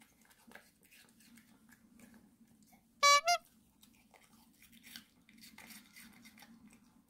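A Maltese dog chewing raw vegetable and fruit pieces close to the microphone, a run of faint crisp crunches. About three seconds in, a brief loud pitched sound of two quick notes cuts across the chewing.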